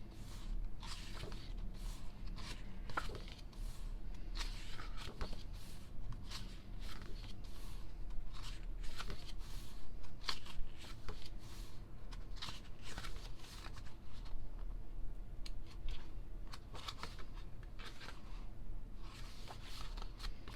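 Pages of a K-pop album photo book being turned one after another: repeated short paper rustles and flaps, one or two a second.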